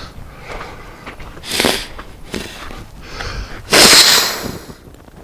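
A man forcefully clearing his running nose: a short snort about one and a half seconds in, then one long, loud nose-blow about four seconds in.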